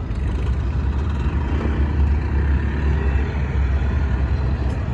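A diesel-size engine running steadily with a deep, low rumble.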